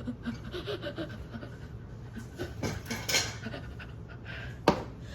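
Rapid panting breaths, with a single sharp click near the end.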